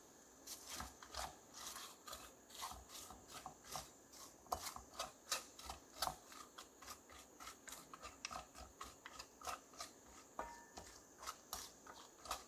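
Wooden spatula stirring raw peanuts with sugar and water in an aluminium pot: irregular clicks and scrapes of the nuts and the spatula against the metal, about three or four a second.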